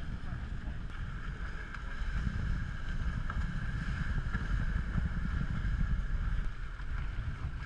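Wind buffeting the microphone over the rush and splash of water along the hull of an Ultra 30 sport boat sailing fast, growing a little louder about two seconds in.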